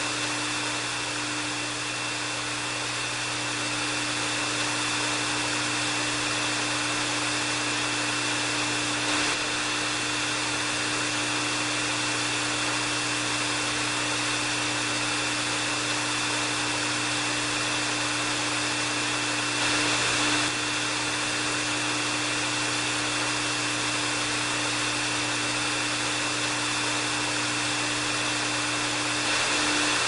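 Electric hair dryer running steadily: an even rush of blown air with a low motor hum and a thin high whine, briefly a little louder about two-thirds of the way in.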